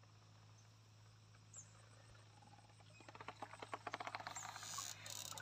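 Water dripping and pattering off the mesh of a lift net as it is raised out of still river water: a quick, irregular run of drips starting about three seconds in and growing louder. Before that there is only a faint steady hum.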